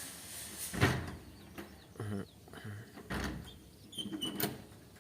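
A handful of short knocks and clinks, about one a second, from a socket wrench and the loosened spark plug being handled and taken out of the motorcycle engine.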